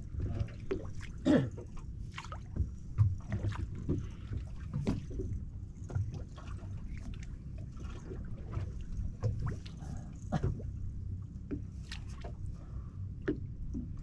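Water sloshing and slapping against the hull of a small fishing boat, over a steady low rumble, with scattered knocks and clicks throughout.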